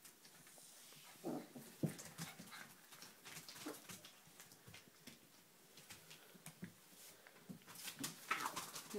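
Golden Retriever puppies giving short, soft whimpers and yips, with scattered light clicks and rustles around them.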